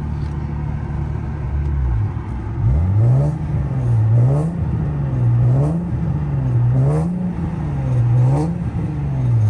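Car exhaust fitted with test pipes and a single resonator. The engine idles, then from about two and a half seconds in it is revved while standing, in about five blips roughly a second apart, rising and falling each time and settling back to idle at the end. The note has a raspy edge that the owner wants gone.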